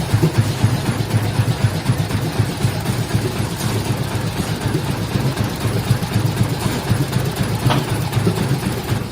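Plastic bag forming machine running steadily: a continuous mechanical clatter over a low hum, with an occasional faint click.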